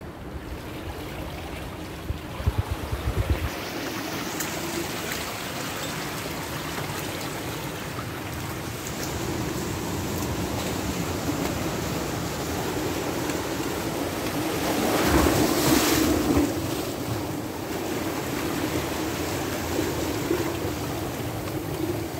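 Water washing and lapping against a rocky shore, with wind on the microphone. A few low wind buffets come about two to three seconds in, and the water swells louder a little past the middle.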